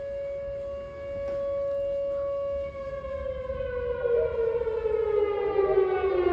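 Outdoor tornado warning siren sounding for a tornado warning. It holds one steady tone for the first two and a half seconds or so, then its pitch falls steadily as it winds down.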